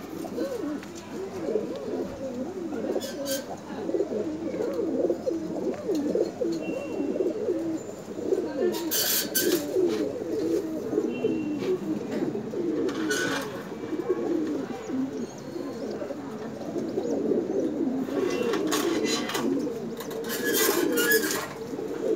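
Several Satinette pigeons cooing together, their low overlapping coos running on without a break. A few brief sharp rattles come in around the middle and near the end.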